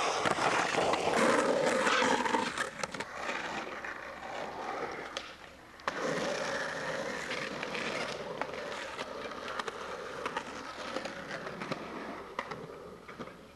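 Skateboard wheels rolling over concrete in a skatepark bowl. The rolling is loud for the first couple of seconds, then quieter, with a sharp clack of the board on concrete about six seconds in.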